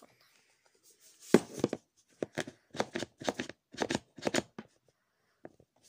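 Hand handling noise right at a phone's microphone: a quick run of about a dozen short rubbing and tapping strokes, three or four a second, starting about a second in, then a couple of faint clicks near the end.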